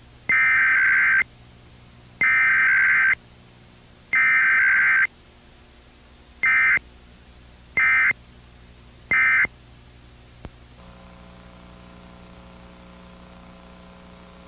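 Emergency Alert System encoder sending its SAME digital data bursts: three long buzzy header bursts, then three short end-of-message bursts, marking a required test with no attention tone.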